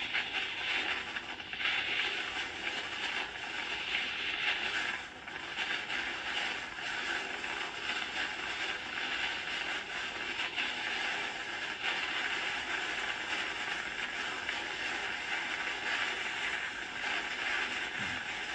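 Hurricane wind at the eye wall, a steady rushing noise with a constant fine crackle.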